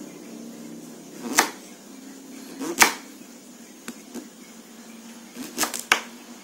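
Kitchen knife slicing through peeled sweet potato and knocking on a wooden cutting board: separate sharp chops a second or so apart, then a quick run of three near the end.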